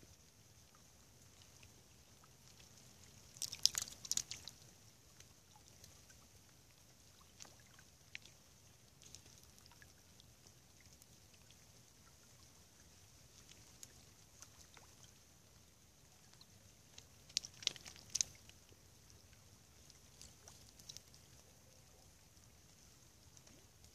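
Quiet ambience of a still river in snow: a faint steady hiss with scattered small ticks, and two brief clusters of sharp, splashy clicks, about four seconds in and again past the middle.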